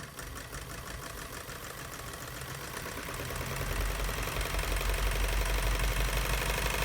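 Motorized 1917 Singer Model 28 sewing machine running under its old electric motor, which drives the hand wheel through a rubber-tyred friction pulley: a rapid, even clatter of the machine's mechanism over a quiet motor hum, getting louder and gaining a low hum as it speeds up about halfway through. Most of the sound is the machine itself, the motor running very quietly.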